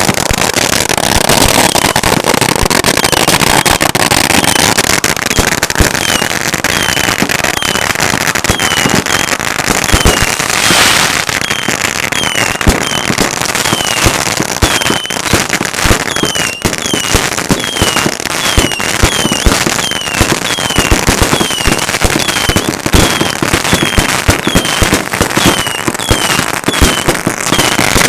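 Consumer firework cakes going off: dense crackling and popping with frequent sharp bangs. From about five seconds in, a string of short falling whistles repeats about one and a half times a second.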